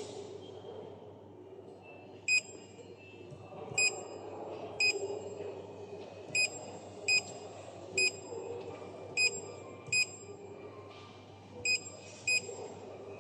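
Touchscreen display's built-in buzzer giving a short, high beep each time a button is tapped: about ten identical beeps at uneven intervals as the menus are paged through.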